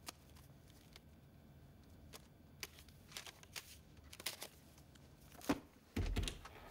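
A hollowed-out hardback book being handled: light rustling and small clicks as its cover is opened and discs are taken from the cut-out pages. Near the end comes a sharp click and then a low, heavy thump as a door is opened.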